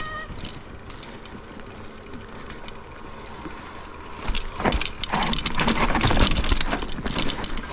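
Mountain bike riding down a rough, wet technical trail: tyres rolling with some rattle at first, then from about four seconds in a much louder run of clattering and knocks as the bike hits roots and rough ground.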